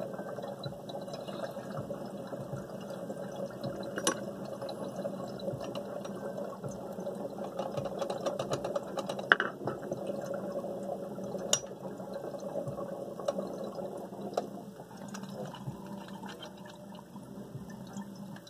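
Water bubbling and gurgling through a small glass dab rig as smoke is drawn through it, with a few sharp clicks along the way; the bubbling thins out about fifteen seconds in.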